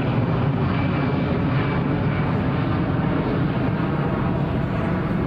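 Airbus A320 jet engines heard from the ground as the airliner climbs away overhead after a go-around, a steady, loud jet noise with a low, even rumble.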